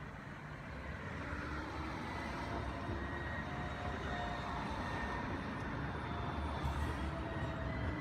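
Sirio low-floor electric tram approaching and rolling slowly past close by, a low rumble that grows steadily louder, with faint whining tones over it.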